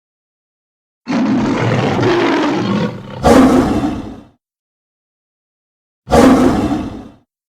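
Gorgonopsid creature sound effects: a growling roar starting about a second in that swells into a louder roar, then after a pause of total silence a second, shorter roar near the end.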